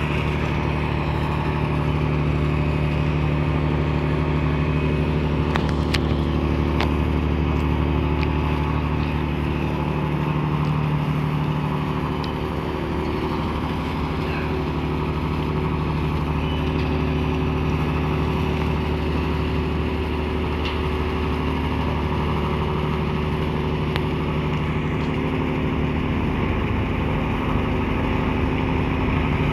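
A ship's diesel engine drones steadily, over a constant hiss of wind and water.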